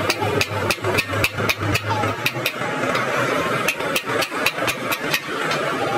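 Small hammer tapping a metal punch against the metal top tank of a truck radiator, light quick strikes at about five a second in two runs with a pause of about a second about halfway. A steady engine hum runs underneath.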